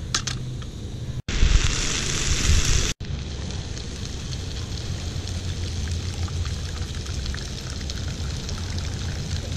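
Bacon sizzling in a frying pan on a portable gas camping stove: a steady crackling hiss, much louder for a couple of seconds near the start.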